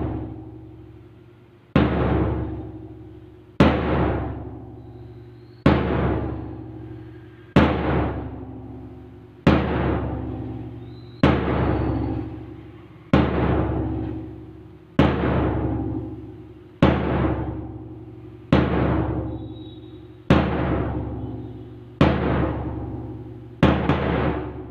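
A large drum struck in a steady beat, about once every two seconds, each stroke ringing with a low pitch and dying away before the next. It keeps the count for a group exercise drill.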